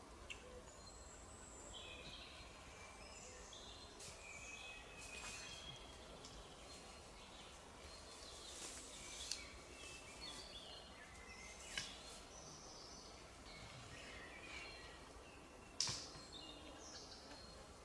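Quiet forest ambience with songbirds singing short, high phrases throughout. A few sharp clicks of gear being handled sound over it, the loudest near the end.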